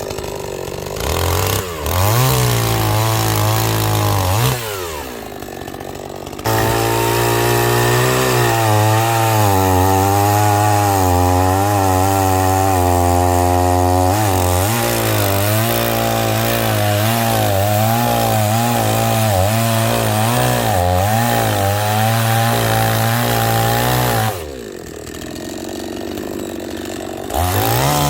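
Chainsaw cutting through a log for firewood: the engine revs up briefly, then runs at full throttle through a long cut, its pitch dipping and recovering under load, drops back to idle, and revs again at the end.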